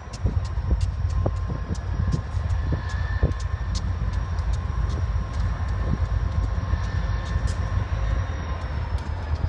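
Diesel locomotive running with a steady low rumble and a faint whine, with frequent sharp ticks over it.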